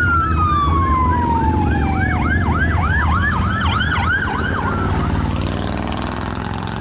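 Emergency vehicle sirens going by: a wail that slides down in pitch over the first couple of seconds, overlapped by a fast yelp cycling about four times a second that fades after about five seconds. Motorcycle engines rumble underneath.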